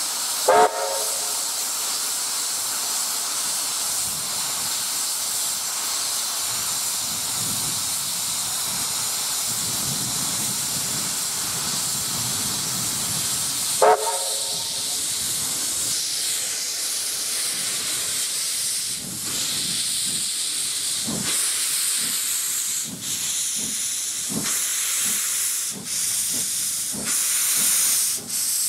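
Steam locomotive A 428 hissing steadily, its cylinder drain cocks blowing steam, with two short whistle blasts, one just after the start and one about halfway. In the last third it starts away, its exhaust beats coming gradually quicker.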